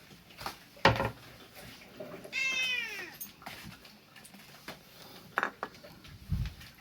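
A hungry house cat meows once: a single loud cry, falling in pitch and lasting under a second, begging for food. A few short knocks come before and after it.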